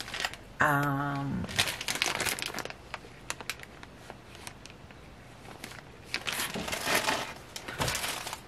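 Clear plastic zip bag of earrings crinkling as it is handled, in spells about two seconds in and again from about six seconds in.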